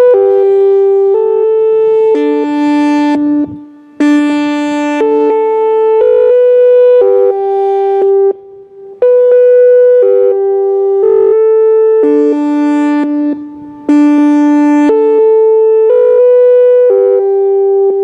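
Electronic chime tones played loudly through an ATI HPSS-32R siren's loudspeaker array: four phrases of sustained chime notes, each note about a second long, with short pauses between phrases.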